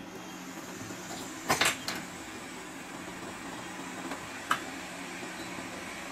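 Steady hum of bench equipment with a quick cluster of light clicks about a second and a half in and one more click about four and a half seconds in, from small tools being handled at a repair bench.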